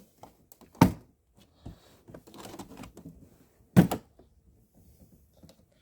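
A lid on the camcorder kit being worked open by hand: two sharp knocks about three seconds apart, with faint handling and rustling in between.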